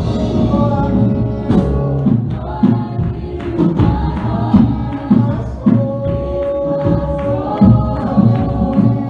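Gospel music: singing voices over a band with drums.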